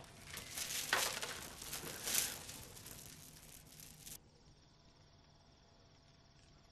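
Strands of a bead curtain clacking and rattling as they swing, loudest about one and two seconds in, then cutting off suddenly about four seconds in. After that, faint steady cricket chirping.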